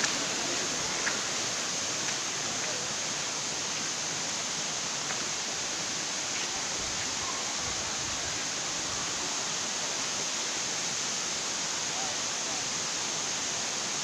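Steady rushing of waterfall and stream water, an even hiss that holds at one level throughout.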